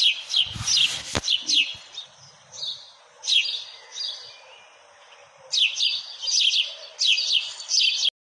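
House sparrows chirping in quick runs of short, sharp chirps, with a lull in the middle and the chirping picking up again. A brief low thump comes about a second in, and the sound cuts off abruptly near the end.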